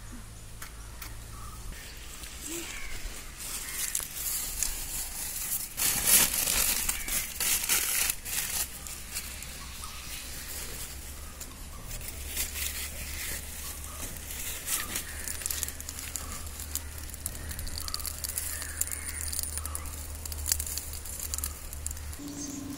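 Newspaper crumpling and rustling against dry coconut palm fronds, loudest a few seconds in, then lighter crackling and rustling as the lit paper sets the fronds alight.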